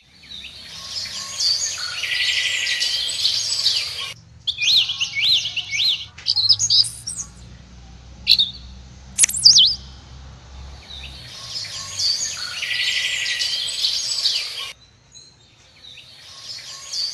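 Birds chirping and twittering in a dense high chorus that cuts off abruptly about four seconds in and again near the end. In between come single warbling and whistled calls that rise and fall.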